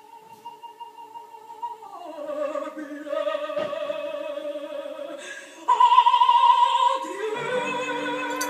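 Operatic singing over music, with long held notes and a wavering vibrato. The pitch drops about two seconds in, and a louder, higher note comes in near six seconds.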